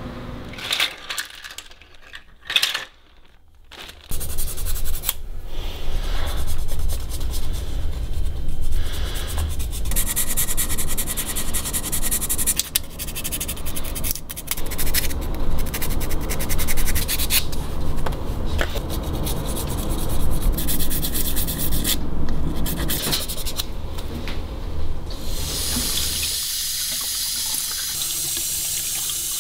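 Hand-filing a 3D-printed resin part, a rough rubbing rasp in uneven strokes for most of the time, after a few light clicks at the start. Near the end a tap runs steadily at a sink as the part is rinsed.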